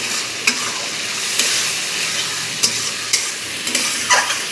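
Potato and onion masala sizzling in a steel kadhai while a flat spatula stirs it, the spatula scraping and clicking against the pan several times over a steady frying hiss.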